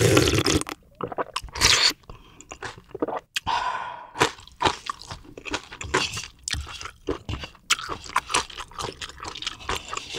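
Close-miked chewing of crunchy food: two loud crunches in the first two seconds, then a long run of smaller crunchy chewing sounds.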